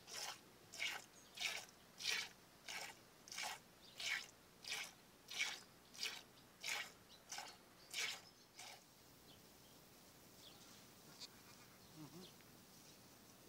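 Goat being milked by hand: regular hissing squirts of milk hitting a container, about one and a half a second. The squirts stop about nine seconds in, leaving faint outdoor background with a few faint chirps.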